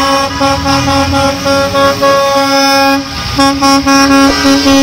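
Several school bus horns sounding long, overlapping blasts with short breaks as the buses pull away.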